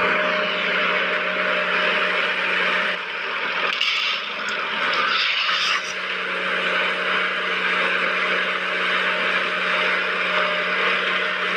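A small electric motor whirring steadily with a gear-like hum, easing slightly for a couple of seconds partway through.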